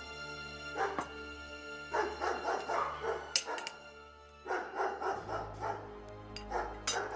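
Dogs barking in repeated bursts over a low, sustained musical drone.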